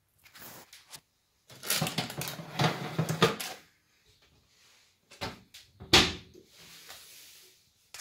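Rustling and scraping for about two seconds as a baking tray goes into an oven, then a knock and the oven door shutting with a bang about six seconds in.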